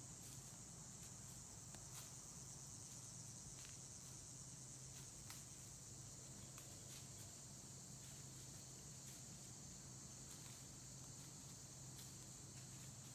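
Faint, steady high-pitched chorus of insects, with scattered faint ticks.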